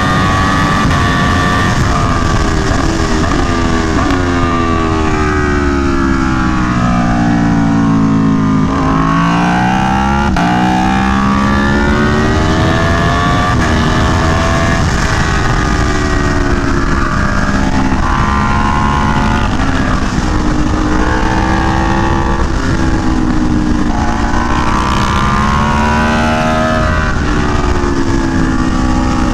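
Aprilia Tuono V4 1100 Factory's V4 engine through an SC Project CR-T exhaust, ridden hard at track speed. Its pitch climbs and drops again and again through the gears, with a long fall as it slows about eight seconds in, then a climb back up under acceleration.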